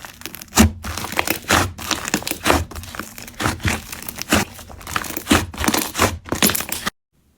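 Hands squeezing and pressing clay slime, making a run of irregular crinkly, crackling squishes that stop abruptly near the end.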